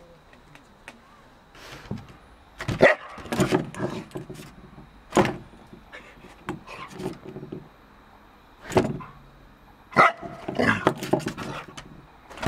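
A dog barking in short separate bursts, several times over a few seconds.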